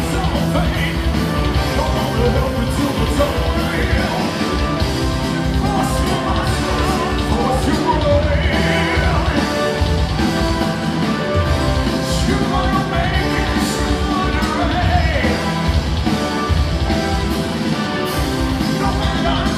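Symphonic metal band playing live: distorted electric guitars, keyboards and drums, with a singer's voice over them in places, recorded from among the audience.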